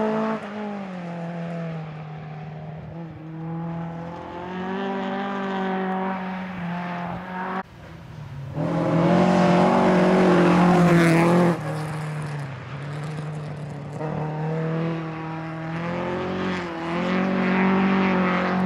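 Rally car engines running hard on a gravel stage, the engine pitch rising and falling as the cars accelerate and change gear. The sound breaks off abruptly about eight seconds in, then a car runs past close by, loudest from about nine to eleven seconds in.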